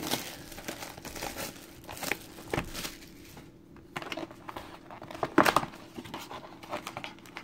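Plastic shrink wrap on a trading-card hobby box being torn open and crumpled: irregular crackling and rustling, with louder tears about two and a half and five and a half seconds in.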